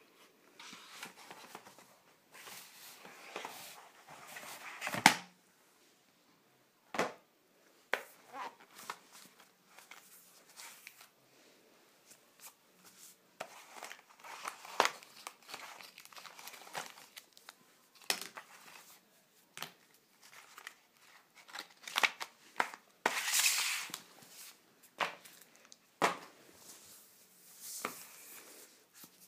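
An e-reader's cardboard box and its packaging being handled and opened by hand: scattered rustling, crinkling and tearing with sharp taps and knocks, the loudest knock about five seconds in.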